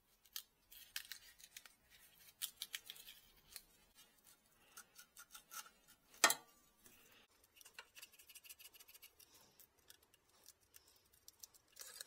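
Faint, irregular scratching and small metallic clicks as sandpaper is worked between the pitted distributor contact-breaker points of a 1947 Riley RMA. There is one sharper click about six seconds in.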